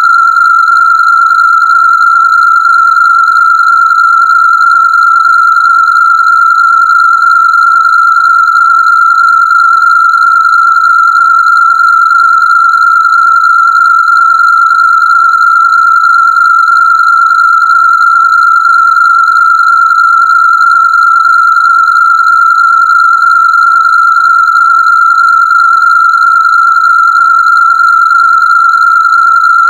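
A single loud electronic Rife frequency tone, held steady at one pitch without change.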